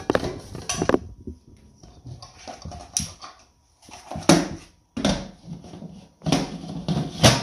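Knocks and scrapes as a nonstick inner pot is set down into a Crock-Pot Express multicooker base. The plastic pressure lid is then fitted and turned into place, with several short clacks; the loudest comes near the end.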